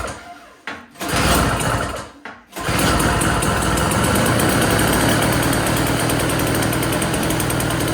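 Small single-stage snowblower engine being started: two short bursts, then it catches about two and a half seconds in and runs steadily. It starts on fresh gas after its carburetor bowl and jet were cleaned, and runs well.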